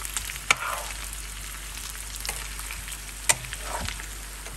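Chicken and potatoes sizzling in a frying pan as they are stirred with a metal utensil, with a sharp clack of metal against the pan about half a second in and again a little after three seconds.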